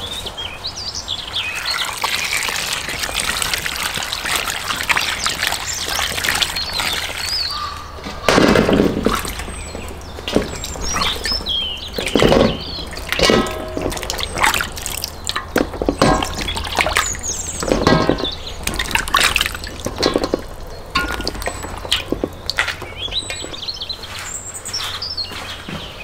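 Water running from a garden hose, then splashing and sloshing as bell peppers are handled and rinsed by hand in metal tubs of water, in many short irregular splashes from about eight seconds in.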